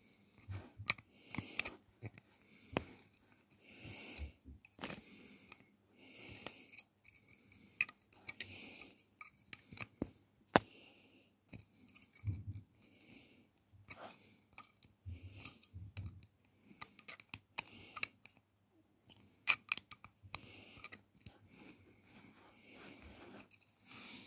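Hands working a bassoon reed with small hand tools: irregular sharp clicks and snips of pliers and metal on the reed and its mandrel, mixed with short rustling handling noises. The sharpest click comes about ten seconds in.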